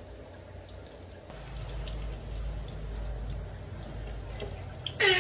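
Handheld shower head running, its spray hissing onto a baby monkey's wet fur and a plastic stool in a small tiled bathroom, with dripping; the sound gets fuller about a second and a half in. A short loud burst comes right at the end.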